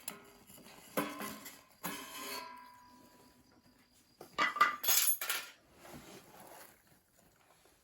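Metal camp cookware clinking and knocking: a knock about a second in, a second one that leaves a short metallic ring, then a louder burst of clattering near the middle.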